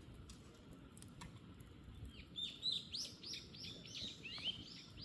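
A bird singing a quick run of about ten short, high chirps, each sliding downward in pitch, starting about two seconds in.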